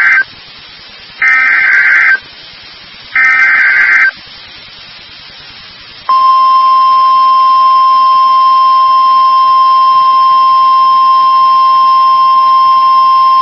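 Emergency Alert System SAME data header: three loud, harsh warbling data bursts of about a second each. About six seconds in comes the NOAA Weather Radio 1050 Hz warning alarm tone, a single steady loud tone that holds on. Together they signal that a new warning broadcast is about to begin.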